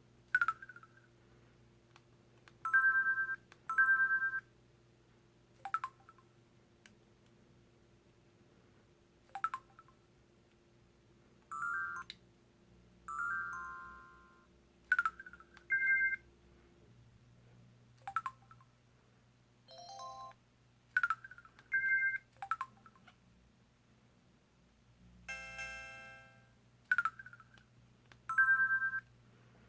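Samsung Anycall SPH-W3000 'UFO' phone playing its short electronic effect sounds one after another: brief beeps, blips and chirps, each under a second, spaced a second or two apart. About 25 seconds in comes one longer chord-like tone.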